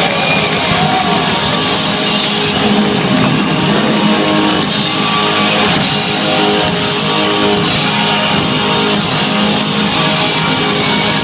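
Rock band playing live and loud, with guitar and a drum kit and no vocals.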